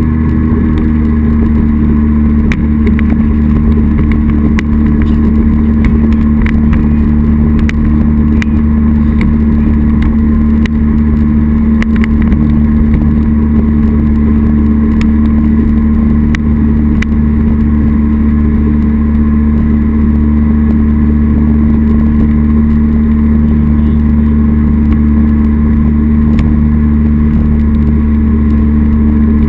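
Jet boat with a 240 Sport Jet drive running steadily under way at speed, its engine holding a constant pitch over the rush of water.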